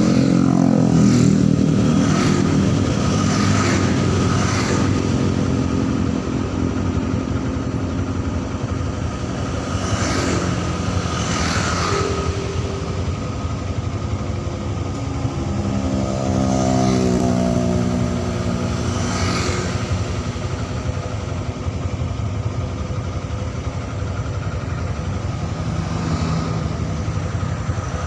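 Road traffic: motorcycles and cars passing one after another, their engines running and changing pitch as they go by, with several passing close.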